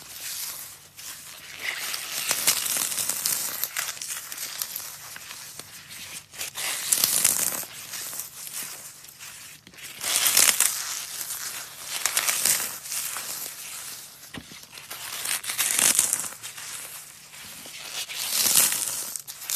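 Dry floral foam cubes dusted with gym chalk being squeezed and crumbled by gloved hands: a crisp crackling crunch that swells in surges every couple of seconds, loudest about a third and halfway through and near the end.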